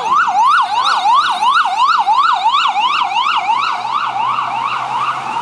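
FDNY ambulance siren in fast yelp mode: a rapid rise and fall in pitch, about three to four cycles a second. Near the end it changes to a slow rising wail.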